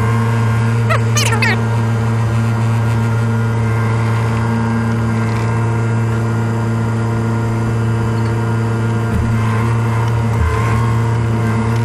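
JCB telehandler's diesel engine running steadily, heard from inside the cab. A short squeak cuts in about a second in.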